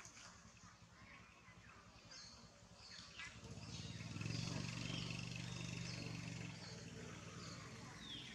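Outdoor birdsong of short high chirps, with a low engine hum that swells from about a third of the way in and fades again near the end.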